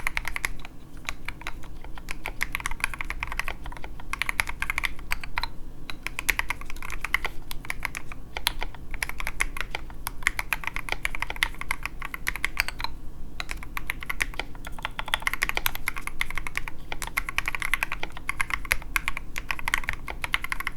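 Fast, continuous typing on a custom mechanical keyboard with lubed and filmed Everglide Sakura Pink linear switches and SA-profile ABS keycaps, set on a desk mat, with a few brief pauses between bursts of keystrokes.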